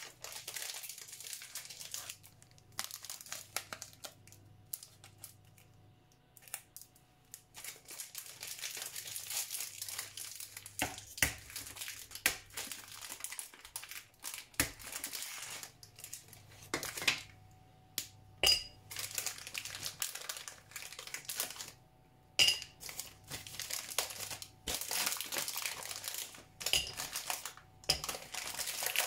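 A chocolate bar's wrapper crinkling and tearing as it is unwrapped, in stops and starts, with a few sharp clicks.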